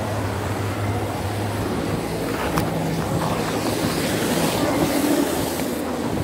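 Muffled rubbing and rustling of clothing against a phone's microphone as the phone is moved, over a steady, dense noise.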